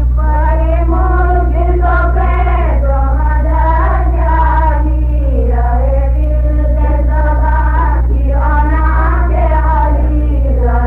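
A woman reciting in Kutchi in a sung, chant-like style, holding long notes that glide up and down, with a steady low hum underneath.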